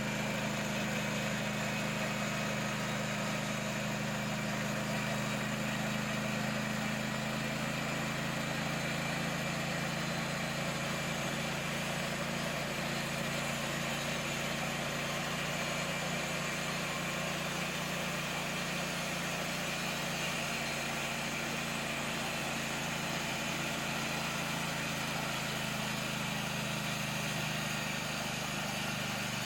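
Vintage sawmill's carbureted gasoline engine running at a steady speed, powering the band saw.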